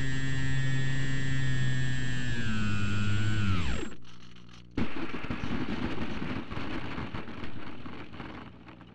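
Electric motor and propeller of a Slowstick RC plane whining steadily, then winding down in pitch and stopping a little under four seconds in. About a second later a sudden thump as the plane touches down, followed by rattling rolling noise from the wheels on the pavement that fades as it slows.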